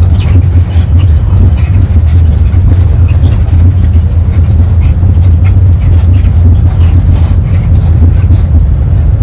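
Steady low road rumble heard inside a moving vehicle's cabin at highway speed: engine and tyre noise.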